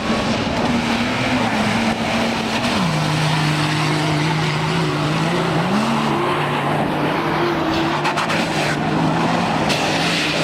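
Off-road 4x4 race vehicle engine running under load, its pitch dropping suddenly about three seconds in and then holding with small rises and falls, over a steady rush of noise.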